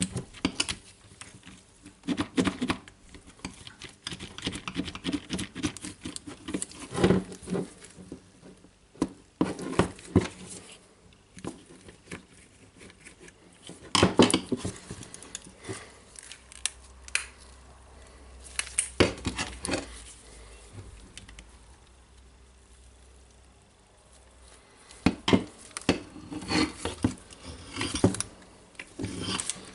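Irregular clicks, taps and knocks of a cordless impact driver's hard plastic housing being handled and pried with a screwdriver on a wooden tabletop, with quieter stretches between.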